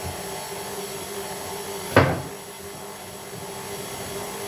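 KitchenAid Artisan stand mixer running steadily, its whisk whipping egg whites into meringue, with a single sharp knock about two seconds in.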